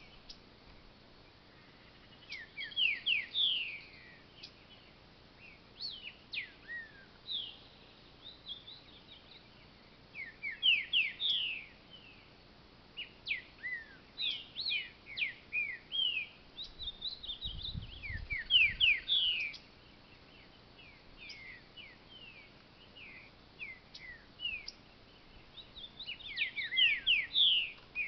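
Green-winged saltator (trinca-ferro) singing from its cage: repeated bursts of quick, steeply sliding whistled notes, phrase after phrase with short pauses between. A short low rumble comes a little past the middle.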